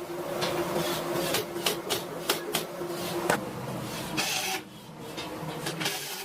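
Electric woodworking power tool running with a steady motor whine and a series of sharp clicks as it works the wood. The motor sound drops away about four and a half seconds in.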